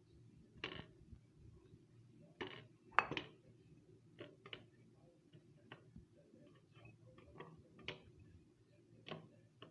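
Scattered light clicks and knocks of kitchen dishes and utensils being handled, about a dozen in all, the loudest about three seconds in.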